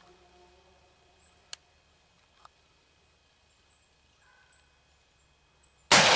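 A single rifle shot from an AR-style rifle near the end, a sudden loud crack with a long echoing tail. Before it, only faint quiet with a couple of small clicks.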